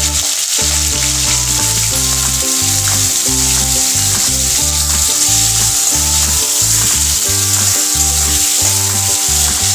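Potato sticks frying in hot mustard oil in a karahi: a loud, steady sizzle, with a spatula stirring them near the end. Background music with low held notes runs underneath.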